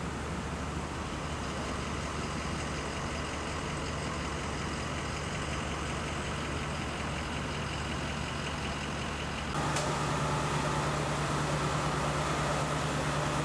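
A steady, low engine hum of vehicles idling. About ten seconds in it suddenly becomes louder.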